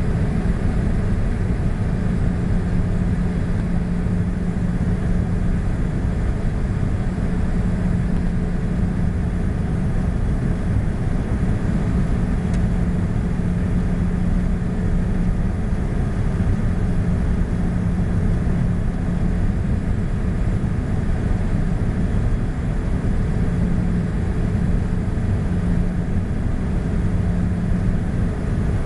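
Gulfstream IV jet's cabin noise while descending to land: a steady rush of airflow with an even low hum from its twin Rolls-Royce Tay turbofan engines.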